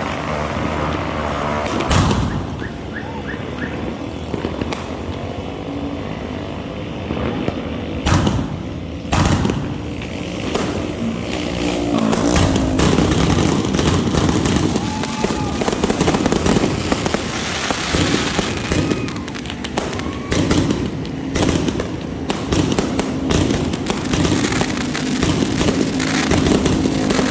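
Consumer fireworks from a Dragon-brand family pack going off in a long barrage of bangs and crackling. Sharp single bangs come about 2, 8 and 9 seconds in, and the crackling grows denser and louder from about halfway through.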